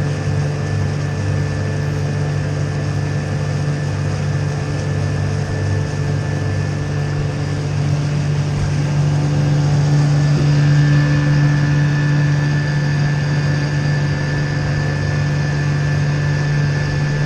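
A boat's motor running steadily with a constant low hum, growing somewhat louder about ten seconds in.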